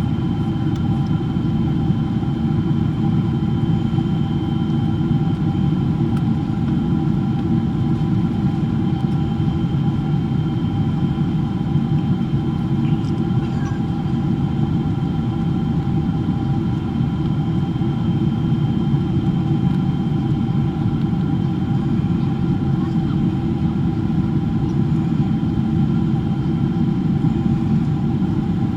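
Cabin noise of a Boeing 777-300ER in flight, heard from a window seat: a loud, steady rumble of its GE90 engines and the airflow, with a few steady whining tones above it.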